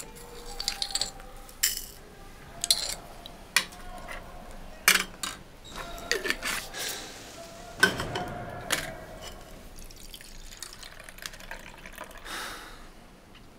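A run of sharp clinks and small knocks, some ringing briefly, mixed with liquid sounds such as dripping or filling.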